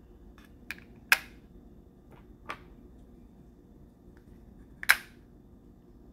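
EarFun Air Pro 3 plastic charging case being handled, giving a few sharp clicks as its magnetic lid and earbuds snap into place. The two loudest clicks come about a second in and just before five seconds.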